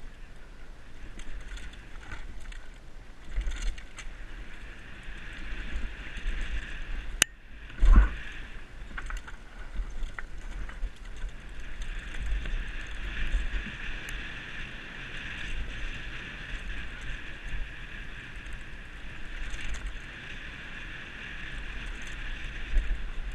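Mountain bike descending a dirt forest singletrack: a steady rattle of tyres, chain and suspension over rough ground, with rumble from wind and bumps on a helmet-mounted camera. About eight seconds in, a short hush is broken by a heavy thump.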